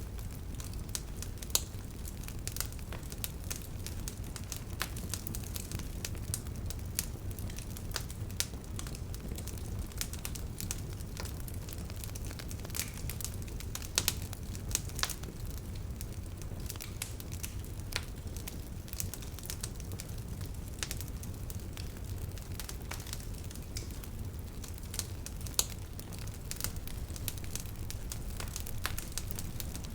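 Wood bonfire burning, with steady irregular crackling over a low rumble of flames and a few louder sharp pops.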